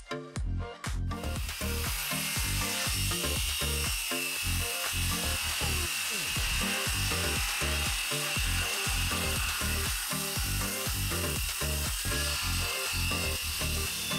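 Background electronic music with a steady beat, over a Ridgid Gen5X circular saw that starts about a second in and runs steadily as it cuts through the ends of 2x6 decking boards.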